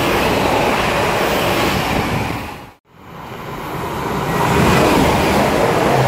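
London Northwestern Railway Class 350 electric multiple unit running fast through the station, a loud steady rush of wheel and air noise. The sound breaks off just under three seconds in. A second train is then heard approaching, growing louder until it passes close.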